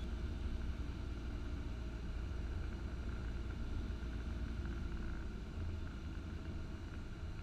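Cessna 172's engine drone heard faintly through the headset intercom feed on final approach: a steady low hum with a light hiss.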